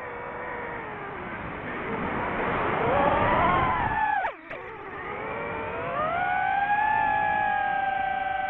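DJI FPV quadcopter's motors and propellers whining, the pitch sliding up and down with the throttle. About four seconds in the sound drops away sharply for a moment, then climbs back and holds a higher, steadier whine.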